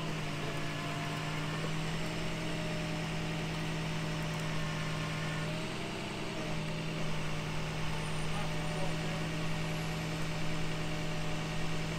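Tow truck engine idling steadily, a constant hum that wavers briefly about halfway through, with more low rumble in the second half.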